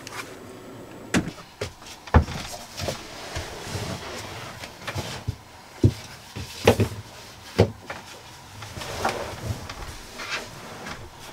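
Irregular knocks and thumps, about half a dozen, scattered over several seconds: things being handled and set down on a table as a person sits down at it.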